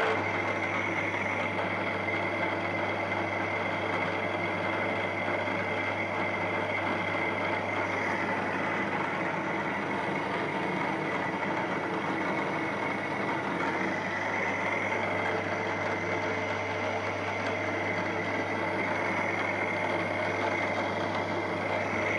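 Milling machine running with a centre drill in the chuck, spotting the mark for a small hole in a steel part: a steady low motor hum with a thin high whine above it, starting suddenly and running on unchanged.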